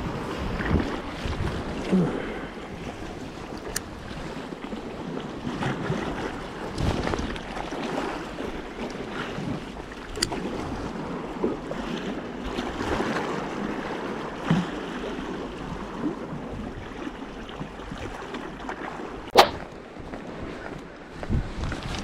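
Sea waves washing among tetrapod breakwater blocks, with wind on the microphone and scattered small clicks, then one sharp click near the end.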